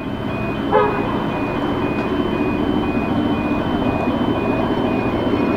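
Rapid electronic beeping in two alternating high tones, typical of a level crossing warning, over the steady low rumble of approaching EMD diesel-electric locomotives. A brief rising squeal comes about a second in.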